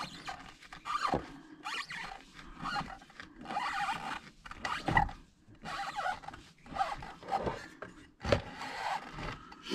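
Rubber CVT drive belt of an ODES 800 being worked off the variator pulleys, rubbing and scraping against the metal sheaves in irregular strokes. Several sharp knocks come about a second in, at about five seconds and near the end.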